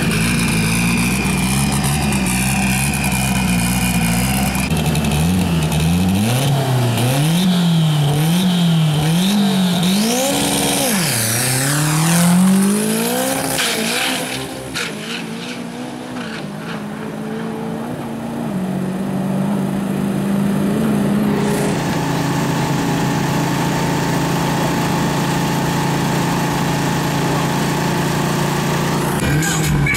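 Drag race pickup's engine running at the start line, then on the run its pitch swings up and down about once a second before rising steeply to the loudest point and fading as the car pulls away. After a change about three-quarters of the way through, an engine idles steadily.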